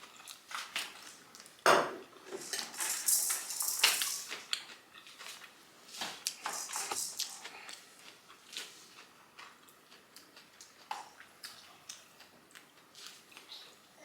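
Kitchen clatter: dishes and utensils clinking and knocking, with one sharp knock about two seconds in. Two short stretches of hissy rustling come through, a few seconds in and again midway.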